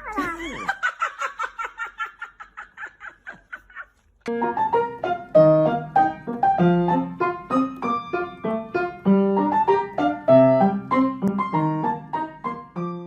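Background music: a quick run of repeated notes that fades away over about four seconds, a short break, then a piano tune with a steady beat.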